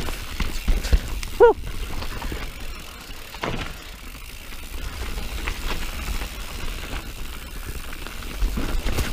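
Mountain bike descending a rough dirt trail: tyres rolling, with the bike knocking and rattling irregularly over bumps and a steady low rumble of wind on the microphone. A brief wavering squeal about a second and a half in is the loudest moment.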